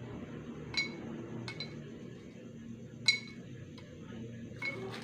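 Small dried purna jiwa fruits dropped by hand into empty glass bottles, each landing with a sharp, briefly ringing glass clink. There are four clinks, the loudest about three seconds in.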